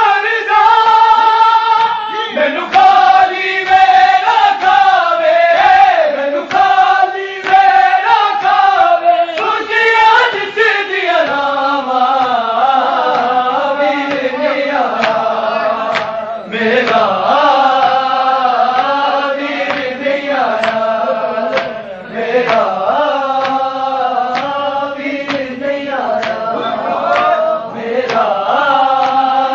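Men chanting a Punjabi noha, a devotional lament, in a melodic line of long held notes, over repeated sharp beats.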